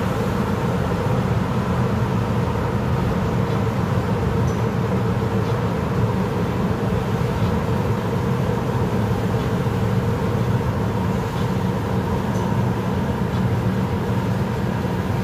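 Steady engine and tyre noise of a car driving through a road tunnel, heard from inside the cabin: an even, unchanging low hum with road roar.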